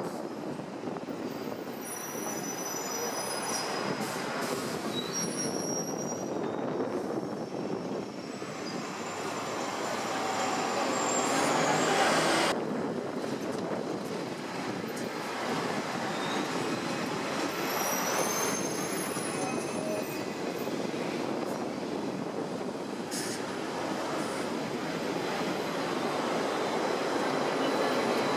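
Hong Kong double-decker electric tram running along its street track, heard from on board: a steady rumble and rattle of the car on the rails, with thin high wheel squeals now and then. The noise builds to a louder stretch and drops off suddenly about halfway through.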